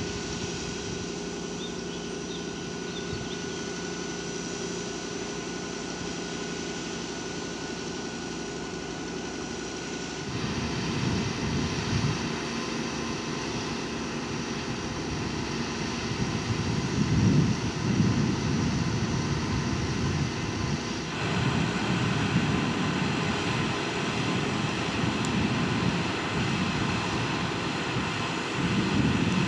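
Diesel-electric Class 230 D-Train's underfloor diesel generator engines running steadily at standstill, a constant humming drone. From about a third of the way in, gusty wind buffets the microphone with an uneven low rumble.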